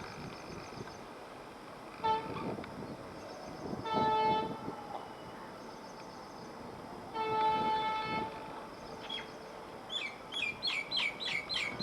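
Diesel locomotive horn sounding: a short toot, then two blasts of under a second each. Near the end a bird chirps rapidly over a low rumble of rail noise.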